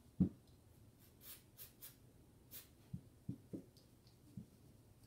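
A hand trigger spray bottle of cleaning spray gives four short hissing squirts in quick succession into a pistol barrel, with a few dull knocks from handling the parts.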